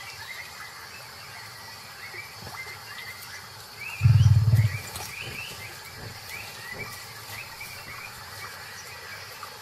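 A tiger gives one short, low growl about four seconds in. Short, high, rising chirps repeat in the background throughout.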